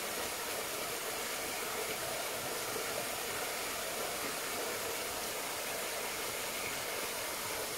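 A steady, even hiss that does not change in level.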